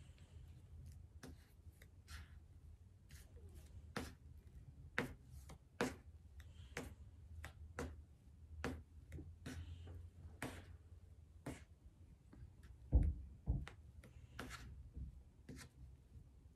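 Knife spreading lightweight spackle around a round box: irregular light taps and scrapes, with a louder dull knock late on over a low steady hum.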